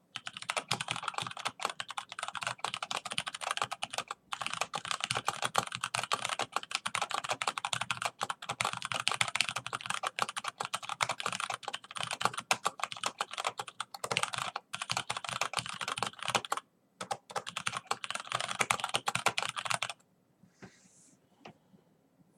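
Fast, continuous typing on a keyboard, dense keystrokes with a few brief pauses, stopping abruptly about two seconds before the end, after which only a few faint clicks remain.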